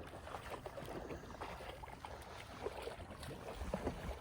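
Water splashing and sloshing in an irregular patter, a dog wading back through shallow marsh water on a retrieve.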